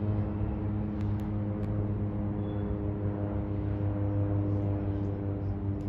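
Steady droning hum of a Cessna turboprop's propellers flying overhead, one low even pitch with higher overtones and no change in pitch.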